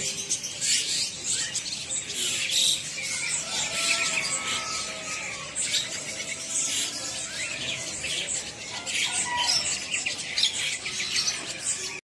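Many small caged birds chirping and twittering at once: short, high chirps overlapping in a continuous chatter.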